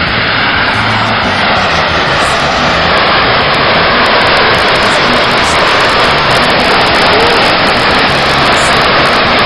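Geothermal steam vent jetting steam out of the ground with a loud, steady rushing hiss, growing a little louder after about three seconds.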